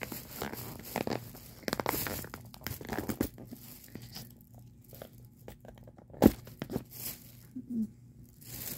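Packaging of a Disney Doorables toy being torn and crinkled by hand in quick, irregular bursts, the sound of an attempt to open it without scissors. A single sharp knock comes about six seconds in.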